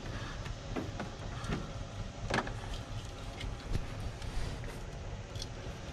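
Small clicks and handling noises of hands working on engine wiring, a few sharp ticks spread through, over a steady low rumble.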